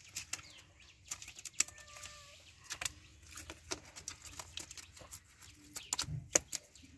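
Live fish flopping and slapping on wet concrete beside a cast net: a fast, irregular run of wet slaps and taps, with the net's mesh rustling as it is handled.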